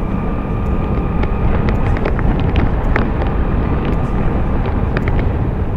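Steady rumble of a moving road vehicle, with wind buffeting the microphone. A faint steady whine runs underneath, and a few light ticks come through.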